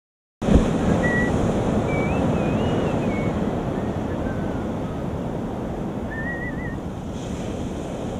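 Ocean surf washing up a sand beach, with wind buffeting the microphone; a few faint, wavering high whistles come and go over the rush. The sound cuts in sharply about half a second in.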